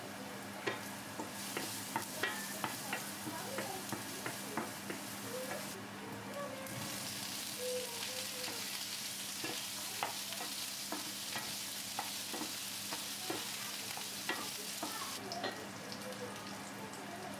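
Garlic and cherry tomatoes frying in oil in a non-stick pan, sizzling, with sharp taps and scrapes of a wooden spoon against the pan. About seven seconds in the sizzle turns louder and hissier and stays that way until near the end, which fits the tomatoes hitting the hot oil.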